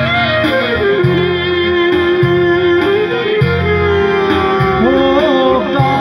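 Two clarinets playing an Aromanian folk melody, holding one long note and then breaking into quick ornamented turns near the end, over a rhythmic low chordal accompaniment.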